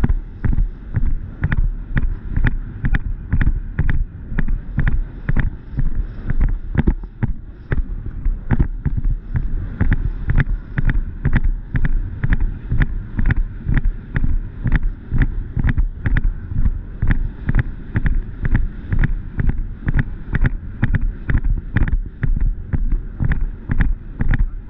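Horse's hoofbeats on turf at a canter, a thud about twice a second with each stride, with wind buffeting the microphone.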